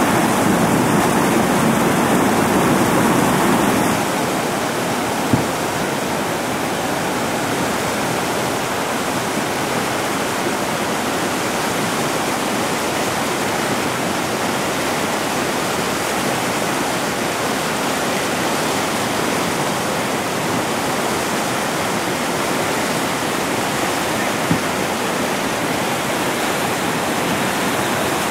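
Whitewater rapids rushing steadily, a loud even roar of water. It is a bit louder and fuller for the first few seconds, drops slightly about four seconds in, and two faint ticks come through.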